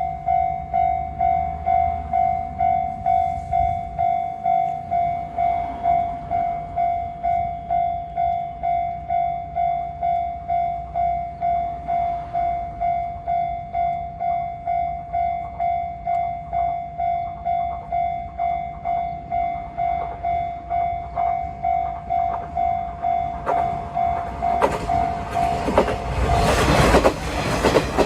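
Japanese railroad crossing alarm ringing its steady 'kan-kan' warning, about two strikes a second. Near the end a KiHa 47 diesel railcar passes over the crossing with loud rumbling and wheel clacks, while the bell keeps ringing.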